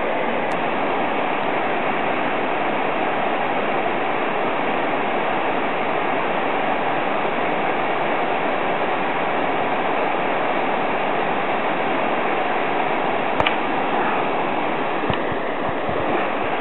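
Swollen mountain stream rushing, a steady wash of water. A short click sounds about thirteen seconds in, with a few faint ticks near the end.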